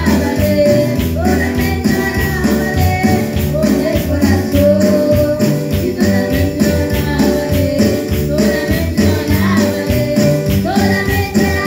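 Live church worship music: a girl singing through a microphone over an electronic keyboard, with a steady percussion beat.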